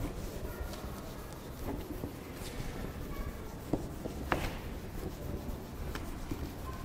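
Whiteboard duster rubbing across a whiteboard as marker writing is wiped off: a faint, repeated scrubbing, with a couple of small knocks about four seconds in.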